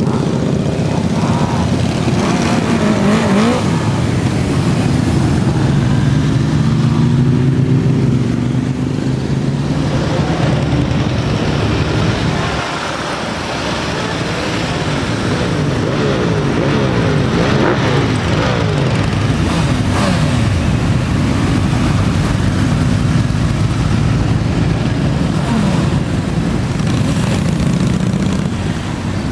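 A convoy of many motorcycles, mostly cruisers and large touring bikes, riding past one after another. Their engines run continuously, with engine notes rising and falling as each bike goes by.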